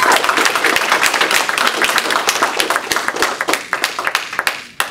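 An audience applauding, many hands clapping in a dense patter that thins out over the last second and stops, with one last clap near the end.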